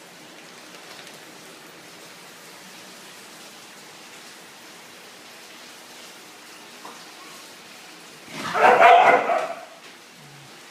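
A small dog barking in one short burst about eight seconds in, over a steady background hiss.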